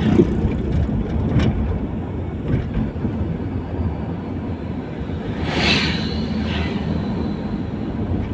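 Steady road and engine noise of a moving car heard from inside, with brief louder swells about a second and a half in and again around six seconds.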